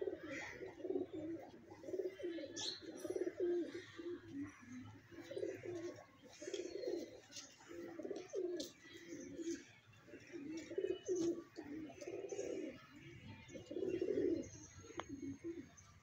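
Domestic pigeons cooing: low repeated coos from several birds, following close on one another with hardly a pause.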